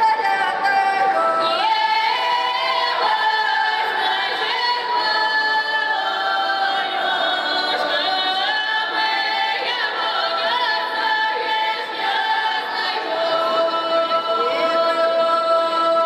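A women's folk ensemble singing a cappella in several voices, a Russian folk song with long held notes and short upward slides into each note.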